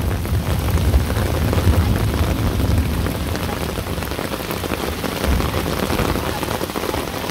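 Steady rain falling on water, a dense hiss with many small drop patters. A low rumble sits under it for about the first three seconds, then eases.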